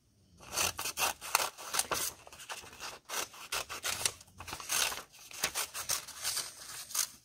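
Scissors cutting through a sheet of white paper: a quick run of short snips with paper rustling.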